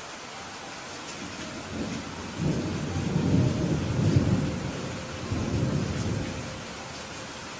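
Steady rain falling, with a roll of thunder that builds about two seconds in, rumbles low for several seconds in two swells, and fades away near the end.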